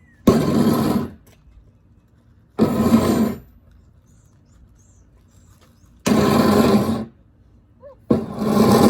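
Four loud, rough scraping or rattling bursts, each about a second long and separated by pauses of one to two seconds. This is deliberate noise-making meant to spook a dog. Faint bird chirps come in between the bursts.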